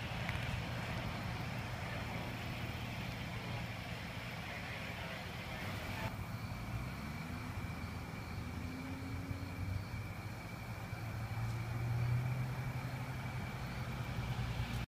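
Vehicle engines running with a steady low hum; about seven seconds in one engine rises in pitch, and the rumble swells louder near the end.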